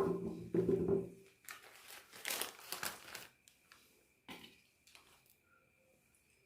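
Eggshells crunching and crackling as eggs are crushed in a meat grinder, in short irregular bursts that are loudest about two to three seconds in, followed by scattered small clicks.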